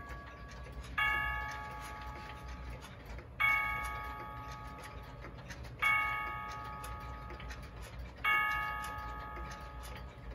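A battery-operated miniature German cuckoo clock striking the hour with electronic bell tones: four ringing strikes about two and a half seconds apart, each fading out before the next, over faint steady ticking.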